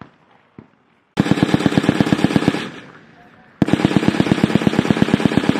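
M240 machine gun (7.62 mm) firing two long bursts of about ten rounds a second, the first about a second in and the second starting about halfway through, each followed by a short echo.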